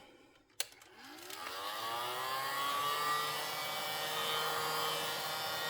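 Heat gun switched on with a click, its fan motor spinning up with a rising whine and then running steadily on its low setting.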